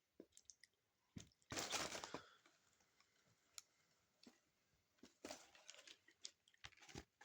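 Quiet chewing of a Doritos Locos taco with its crunchy shell, a few short crunches and mouth clicks, the loudest about a second and a half in and another about five seconds in.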